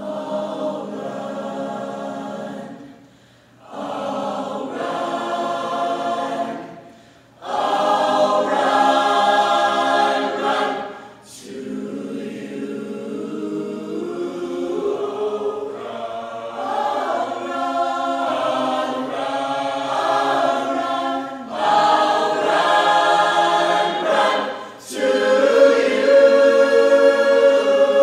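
A large choir singing chords in phrases broken by short pauses, ending on a long held chord, the loudest part of the passage.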